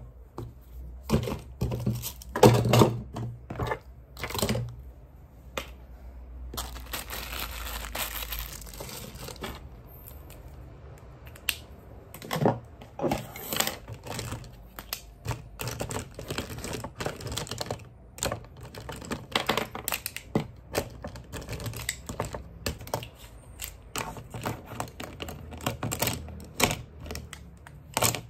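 Small desk items being picked up and set down on a desktop: irregular clicks and light knocks of plastic things and pens, with a few seconds of rustling about a quarter of the way in, and pens being put into a plastic pen holder near the end.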